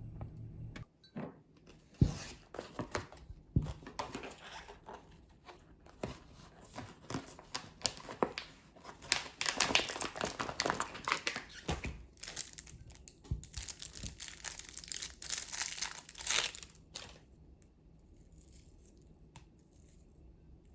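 Plastic food packaging being crinkled and torn open, with irregular rustling and sharp clicks that are loudest in the middle and die down near the end.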